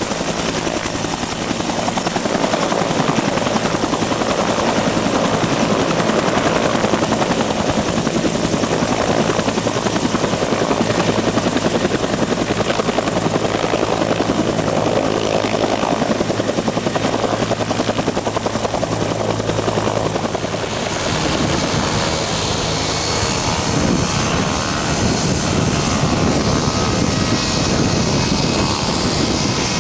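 Bell UH-1 Huey helicopter's turbines and rotor running steadily as it lifts off and departs, with a thin high whine over the rotor beat. About two-thirds of the way through, the sound changes to a small single-engine propeller plane's engine running as it taxis.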